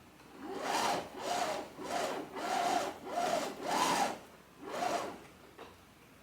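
About seven rhythmic rubbing strokes, each swelling and fading, with no motor running underneath.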